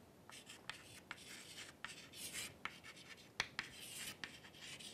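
Chalk writing on a chalkboard: a run of short scratchy strokes, with sharp taps as the chalk meets the board, the sharpest about three and a half seconds in.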